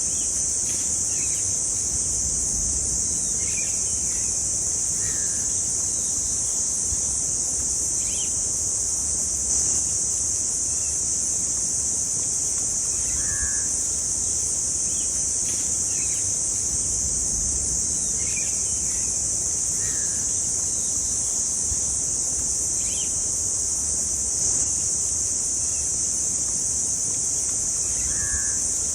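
Steady high-pitched insect drone throughout, with short bird calls every few seconds.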